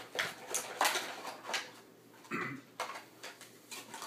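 Flashlight packaging being opened and handled: a scattering of short sharp clicks and knocks, with a brief rustle or scrape about two and a half seconds in.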